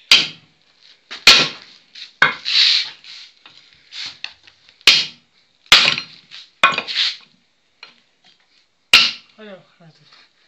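Long-handled sledgehammer striking a steel angle wedged between a tubeless tyre's bead and a steel wheel rim: about seven sharp metallic clanks at uneven intervals, each ringing briefly. The tyre bead is being hammered off the rim by hand.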